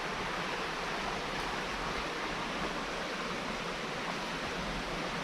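Steady, even rushing noise outdoors, with no separate events.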